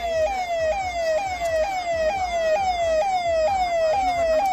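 Electronic siren from a car-mounted loudspeaker horn, a fast repeating falling wail about twice a second.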